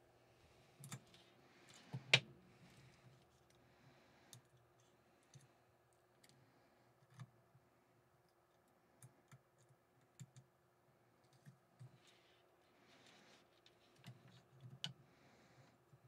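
Faint, scattered clicks and taps of hands handling small metal and plastic parts while fitting a laser module to a gantry carriage and starting its mounting screw. The sharpest click comes about two seconds in.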